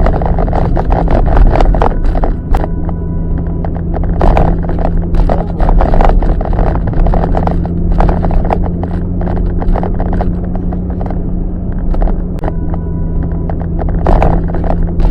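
A car being driven: steady engine and road noise with a low hum, broken by frequent short knocks and rattles.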